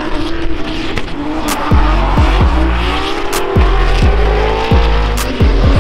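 Drift cars' engines revving and tyres squealing, under music with a deep, falling bass note about once a second and a steady beat.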